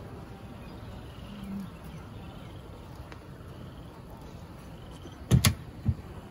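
Honeybees buzzing over an open hive, with one bee passing close in a brief louder buzz about a second and a half in. A sharp knock about five seconds in, followed by a softer thump.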